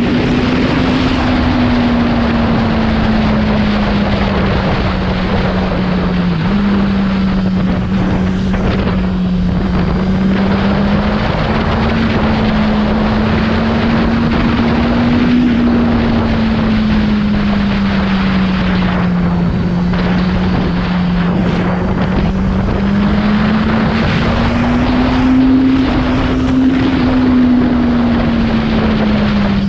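Kawasaki Z900's inline-four engine running at a steady cruise, its note drifting gently up and down with a small step up about six seconds in, under heavy wind rush on the microphone.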